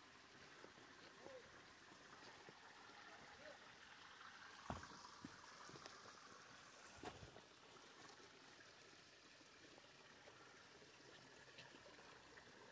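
Faint, steady trickle of spring water running under fallen logs, with two soft knocks about five and seven seconds in.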